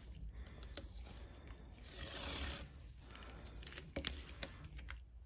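Washi tape being pulled off its roll, a short rasping rip about two seconds in, among light taps and rustles as the tape is pressed down along a diamond painting canvas.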